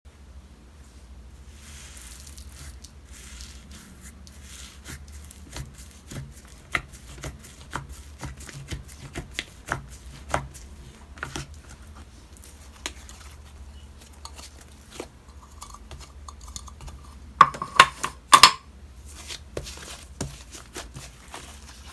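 Slime being worked by hand, with a steady run of small sticky clicks and pops as air pockets in it burst. A few louder pops come close together near the end.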